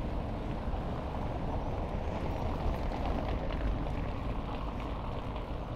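Steady road and wind noise from a fixed-gear bicycle riding along a city street: an even rumble with wind on the microphone.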